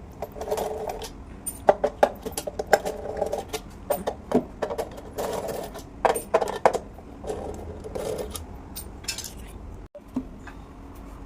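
Irregular clicking, clinking and clattering of hard objects being handled, with short stretches of scraping or rubbing in between.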